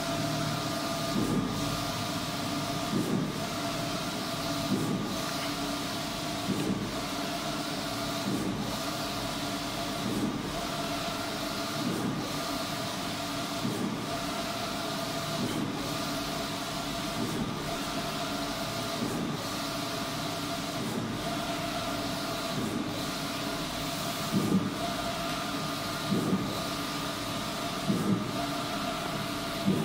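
Wide-format inkjet printer printing a banner: the print-head carriage sweeps back and forth with a steady motor whine and hiss, with a louder pulse at each pass about every 1.8 seconds.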